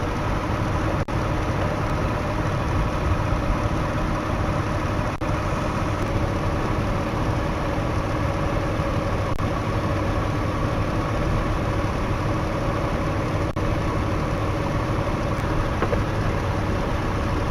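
1998 Jeep Grand Cherokee ZJ idling steadily with the air conditioning running while it takes a charge of R-134a refrigerant.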